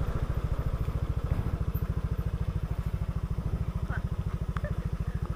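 Motorcycle engine running at low, steady revs, its exhaust beat an even, rapid pulsing.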